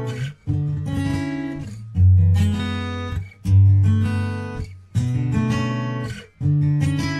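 Background music: strummed guitar chords, a new chord struck about every one and a half seconds and left to ring.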